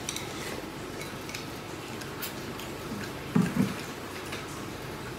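Chopsticks clicking lightly against a porcelain rice bowl and plate while eating, with two short dull thuds about three and a half seconds in.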